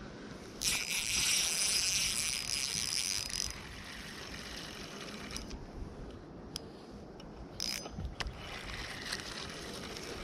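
Spinning fishing reel being cranked: a loud high whir from the reel's gears for about three seconds, then a few sharp clicks, and a softer whir near the end.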